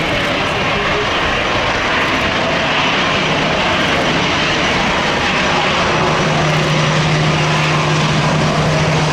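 Jet engines of a Boeing 737-800 (CFM56 turbofans) running loudly and steadily as the airliner passes close by, with a steady low hum joining in about six seconds in.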